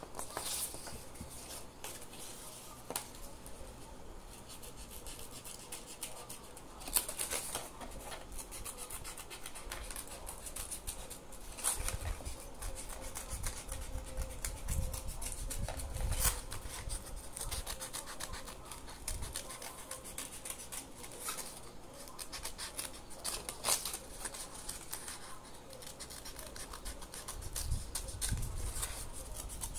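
Scissors cutting a scalloped edge into a strip of micro-corrugated paper, with irregular snips of the blades as the paper is handled.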